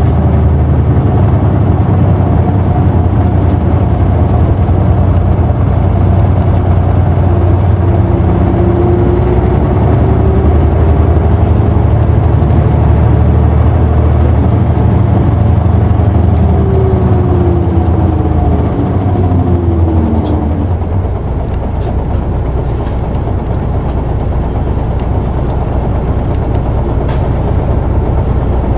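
Isuzu Erga city bus's diesel engine heard from inside the cabin, running strongly with a whine that rises and then falls away between about 16 and 20 seconds in as the bus slows. About 21 seconds in the level drops and the engine settles to a lower, steady idle as the bus comes to its stop.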